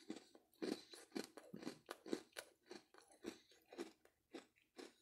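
Quiet, irregular crunching of someone chewing a Java Chip Oreo cookie, about three crunches a second.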